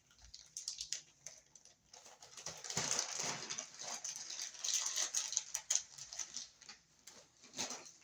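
Hands handling stripped electrical wires and hand tools: irregular rustling, scraping and small clicks, busiest in the middle stretch, with a sharper click near the end.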